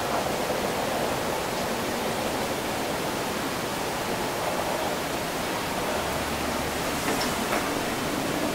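Steady after-rain city ambience: an even hiss of wind and wet background noise, with a couple of faint ticks about seven seconds in.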